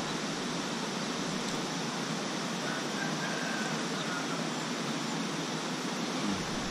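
Steady, even wash of sea water along the shore, with no distinct events.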